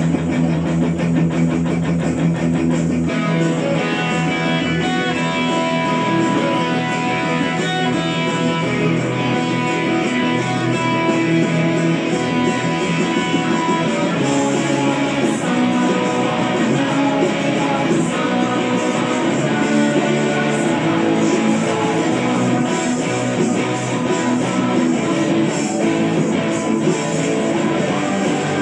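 Semi-hollow-body electric guitar played in a strummed rock guitar part, running steadily as full-band music.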